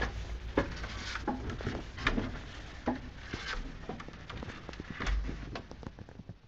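Irregular wooden knocks and creaks in a windmill's timber interior, coming every half second to a second over a low rumble and fading out near the end.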